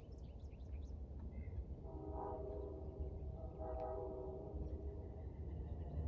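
Distant locomotive air horn sounding two blasts, about a second long each, a chord of several tones, over a steady low rumble.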